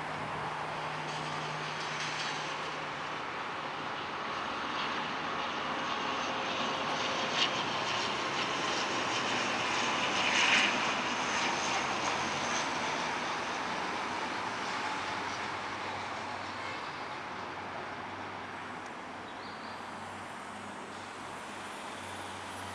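ATR 72 twin-turboprop airliner landing, its engines and propellers running steadily as it draws near, getting loudest about halfway through and then fading as it moves away.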